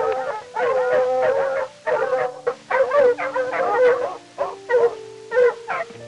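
Red fox calls: a run of short, wavering yelps and howls, repeated every second or so, over background music with sustained notes.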